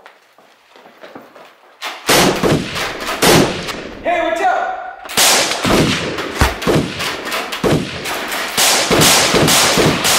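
Gunshot sound effects for a staged firefight: rapid rifle and pistol shots at about three a second, starting about two seconds in. A voice cries out in a short break near the middle.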